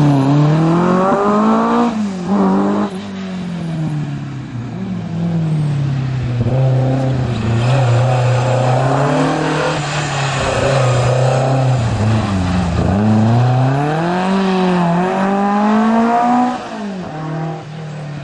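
Historic rally car's engine driven hard on a special stage, its pitch climbing and dropping again and again as it revs through the gears and lifts for corners. It grows quieter after about sixteen seconds as the car moves away.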